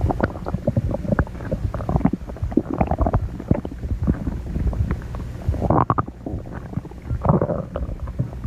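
A person's stomach growling and gurgling: a low continuous rumble full of quick gurgles and pops, with two louder gurgles in the second half.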